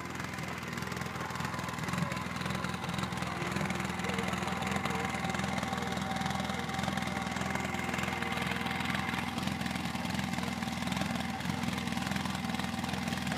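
Polaris RZR side-by-side engine running steadily at low revs, a little louder from about two seconds in.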